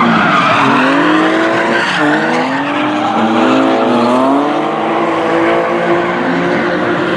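Drift cars sliding sideways in tandem, their engines revving hard with the pitch rising and falling over and over as the drivers work the throttle, over a continuous screech of spinning, skidding tyres.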